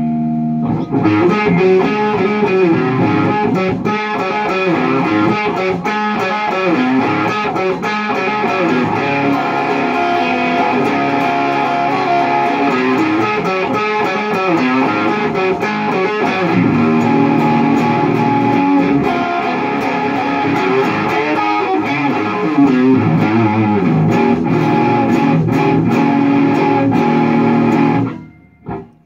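Electric guitar played through a Lone Wolf Audio Left Hand Wrath distortion pedal set for a mid-gain, Marshall plexi-like crunch. It is a continuous run of riffs and lead lines with bent notes, which stops abruptly near the end.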